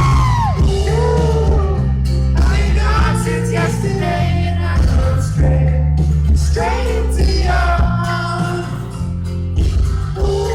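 Live pop-rock band performing with lead vocals over a steady bass line, loud and continuous.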